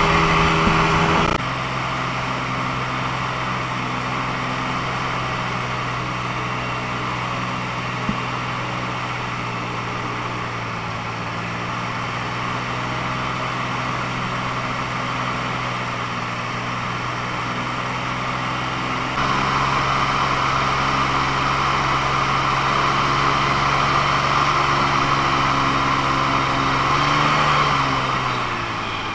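Airboat engine and propeller running steadily at speed, heard from aboard. The level drops sharply about a second in and jumps back up about two-thirds of the way through, and near the end the pitch and level fall as the engine slows.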